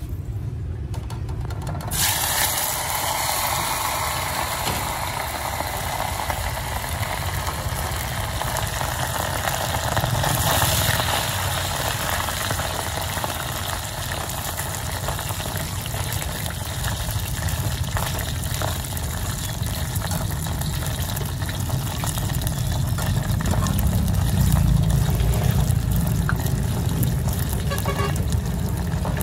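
Sliced meatballs sizzling in hot oil in a small aluminium pot, the sizzle starting suddenly about two seconds in as they go into the oil and then running steadily. A few light clicks of metal tongs against the pot come later, over a low steady rumble.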